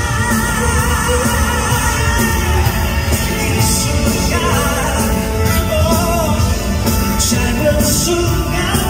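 Loud live pop-rock band music with a male lead voice singing, recorded from within the crowd in a large concert hall.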